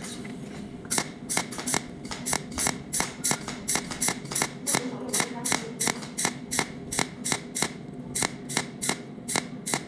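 A cold welding machine's TIG torch firing pulsed spot welds while filler wire is fed into a small hole. Each pulse gives a sharp tick, repeating evenly about three times a second from about a second in.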